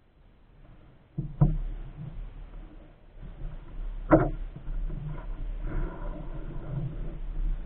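Double-bladed paddle strokes working the water beside a pack canoe, with two sharp splashing strokes about one and a half and four seconds in and softer water noise between, over a low rumble.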